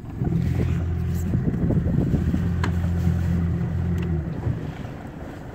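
Boat's outboard motor running steadily at low speed, then cutting out about four seconds in, with wind on the microphone and a couple of light knocks.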